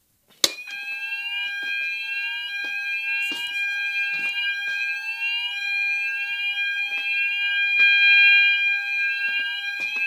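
Fire alarm sounders going off together after a click as the call point is triggered: Roshni sounders play the BS sweep tone, a rising whoop repeating about once a second, over the steady continuous tone of a KAC sounder. Occasional knocks from handling.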